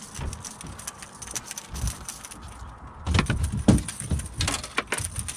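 Knocks and thumps in a small fishing boat as a speckled trout is netted and brought aboard: the landing net and the fish hitting the boat, with footsteps on the deck. A cluster of sharp knocks starts about three seconds in.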